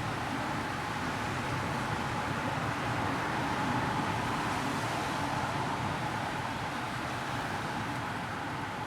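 Steady road-traffic noise: a continuous hum and hiss of vehicles and tyres on a highway, swelling slightly in the middle.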